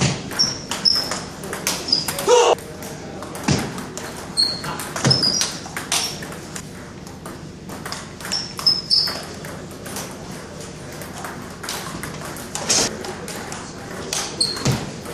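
Table tennis rallies: a plastic ball clicking off paddles and the table in quick, irregular exchanges, with short high squeaks of sneakers on the wooden floor.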